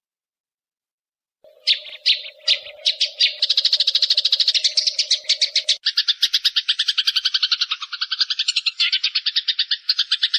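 Eurasian tree sparrow giving its fighting call, a long rapid chatter. A few separate chirps about a second and a half in run into a fast, even string of notes at about ten a second that carries on to the end.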